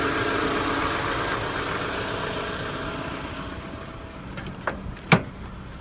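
Daewoo Lanos 1.6 16-valve engine idling with the heater and other electrical loads switched off, running quietly without the belt whistle. It grows fainter over the last few seconds, and two sharp clicks sound near the end.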